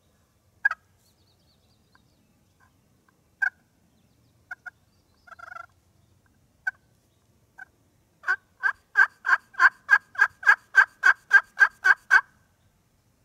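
Hand-worked friction turkey call imitating a hen: a few scattered single clucks, then over the last third a run of about a dozen evenly spaced yelps, roughly three a second, that stops abruptly.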